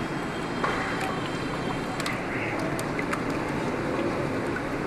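Spatula stirring syrup in an aluminium pot, with a few light ticks of the spatula against the pot, over a steady rushing noise.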